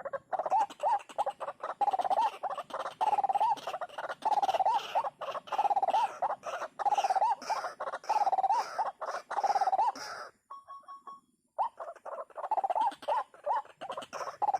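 White-breasted waterhen (ruak-ruak) calling: a loud, fast, endlessly repeated croaking phrase, going on in even bursts, breaking off for about a second a little after two-thirds of the way through, then starting again.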